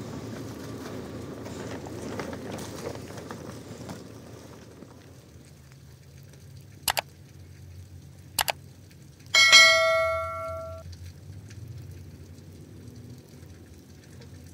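Subscribe-button animation sound effect: two mouse clicks about a second and a half apart, then a bell ding that rings for over a second. Before it, a rustling noise that fades out after about four seconds.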